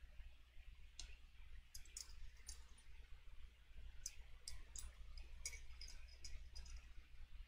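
Faint scattered clicks and ticks of small metal fly-tying tools, hackle pliers, being handled at the vise. They come singly at first, then in a quicker run from about four seconds in, over a low steady hum.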